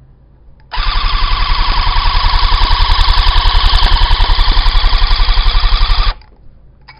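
Electric cut-pile tufting gun running against the stretched cloth, its needle and cutter punching and snipping yarn in a rapid, even stitching rhythm. It starts about a second in and stops abruptly near the end.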